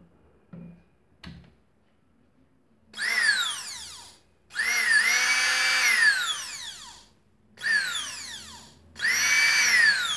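The small brushed motor of a Multimix hand mixer, out of its housing, is switched on and off in four short runs. Each run starts with a whine that rises as it spins up and falls away as it coasts down. The motor is running again after its carbon brushes were scraped clean.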